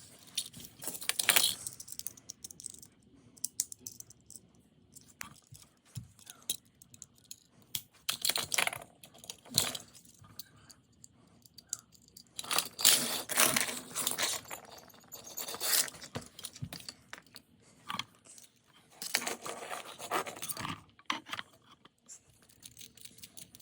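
Small die-cast toy cars clicking and clinking against each other and a hard surface as they are handled, in several separate spells of clatter.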